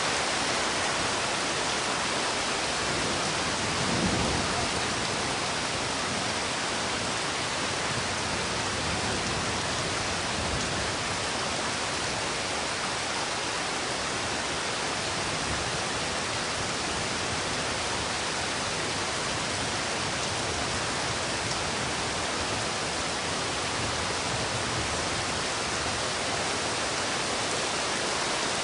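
Steady rain, an even hiss with no single drops standing out, with a brief low swell about four seconds in.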